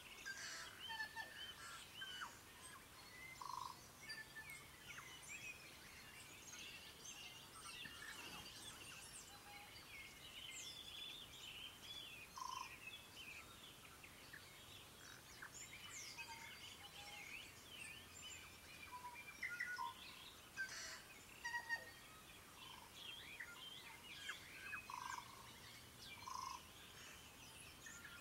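Morning chorus of many wild birds calling at once: a dense mix of short chirps, whistles and sliding notes. A short, lower rounded note repeats every few seconds.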